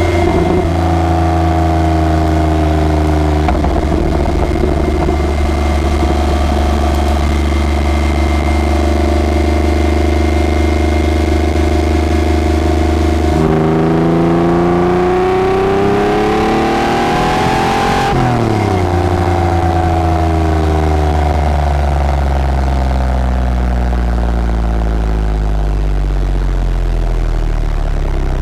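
Sport exhaust of a 2003 Porsche 911 Carrera 4's 3.6-litre flat-six, heard close at the tailpipe while driving. It cruises at steady revs, then about halfway the pitch jumps up and climbs for about four seconds as it accelerates, then falls slowly as the throttle is lifted.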